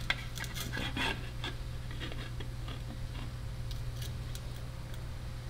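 Light handwork: a quick run of small clicks and short scrapes in the first second and a half, then a few faint ticks over a steady low hum.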